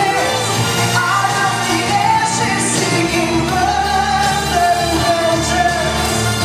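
A pop song with a singing voice over steady, held bass.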